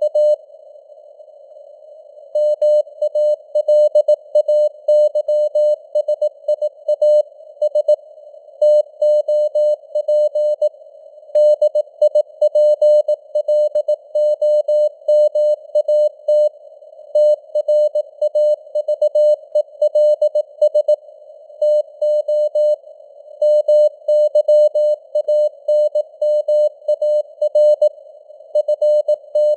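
Morse code (CW) sent at 18 words per minute as a single tone of about 600 Hz keyed in dots and dashes, over simulated narrow-band radio receiver noise. The keying pauses for about two seconds shortly after the start, then runs on steadily.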